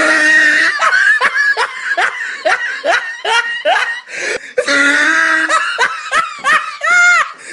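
Loud human laughter: a run of quick, pitched laughing syllables about three a second, with a longer drawn-out laugh about five seconds in.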